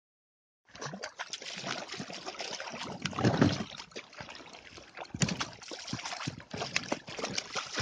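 Hooked sea trout thrashing and splashing at the water's surface beside a boat, a run of irregular splashes, loudest a little past three seconds in. Near the end a landing net is swept through the water to scoop it.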